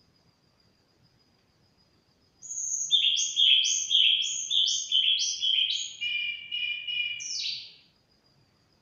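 Caged sulingan songbird singing one loud song of repeated sharp down-slurred whistles, about two a second, that breaks into a short trill and ends on one more down-slurred note.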